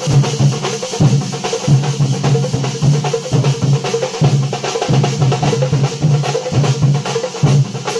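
A thambolam percussion ensemble of large shoulder-slung drums beaten with sticks, playing a fast, driving rhythm of heavy strokes.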